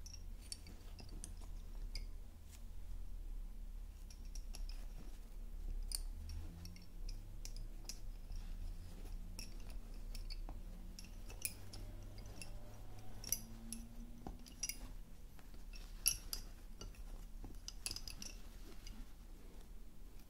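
Wooden Honiton lace bobbins clicking against each other as they are handled on the lace pillow: light, irregular clicks, coming more often in the second half, over a low steady hum.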